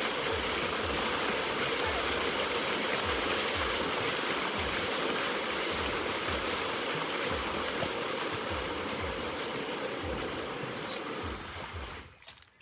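Fountain water jets spraying and splashing in a steady rush, which cuts off abruptly near the end as the fountain show stops.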